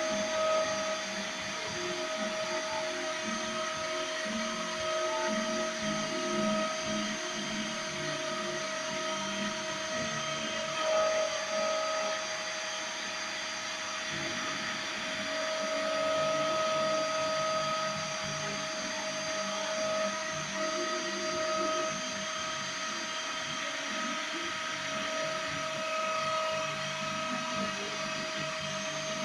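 Small CNC router milling a printed circuit board: the spindle whines at a steady pitch while the stepper motors hum in shifting tones as the axes move.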